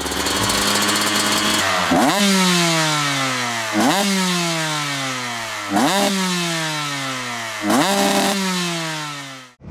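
Dirt bike engine running, then revved four times about two seconds apart: each time the pitch jumps sharply and then falls away slowly. It cuts off abruptly near the end.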